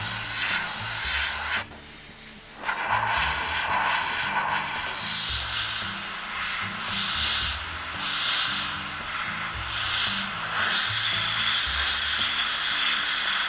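Airbrush spraying acrylic paint in fine lines, a steady airy hiss that is loudest in the first second and a half and breaks off suddenly before carrying on more quietly. Background music plays underneath.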